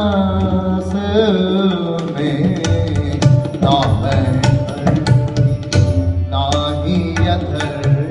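Live devotional bhajan music: tabla strokes throughout under the steady drone of a harmonium, with a man's voice holding sung notes near the start and again around four seconds in.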